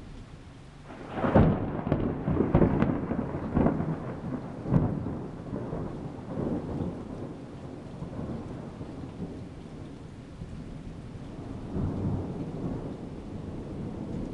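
Thunder: a loud peal breaks about a second in, with several sharp cracks over the next few seconds, then fades into a long rumble that swells again near the end. Steady rain runs underneath.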